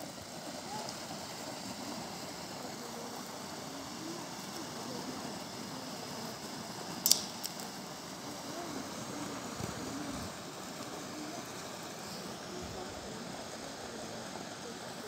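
Steady, faint background noise with faint, indistinct voices, and a brief sharp click about seven seconds in.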